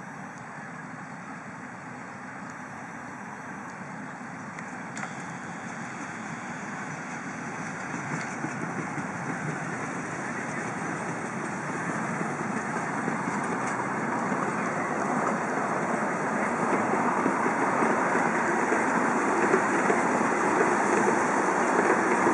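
Battery-electric miniature-railway locomotive and its open passenger cars rolling along the track. A steady rolling noise grows gradually louder as the train comes closer and passes.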